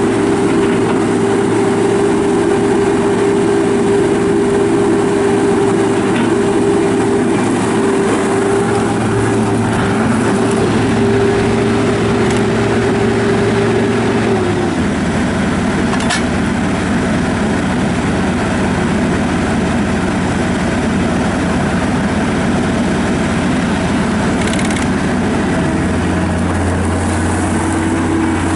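John Deere CT332 compact track loader's diesel engine running steadily under the throttle. Its drone drops in pitch about halfway through and changes again near the end, as engine speed or load changes.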